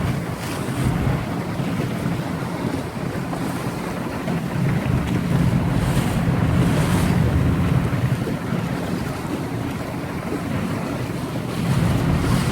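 Strong wind buffeting the microphone over the steady rush of sea surf and a waterfall pouring into the sea, with gusts swelling about halfway through and again near the end.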